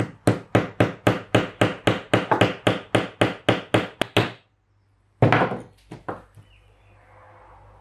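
Hammer gently tapping on a socket to drive a small ball bearing onto a Dellorto DHLA carburettor throttle spindle: about fourteen even taps, roughly three a second, that stop after about four seconds. About a second later comes one louder knock followed by a few small clicks.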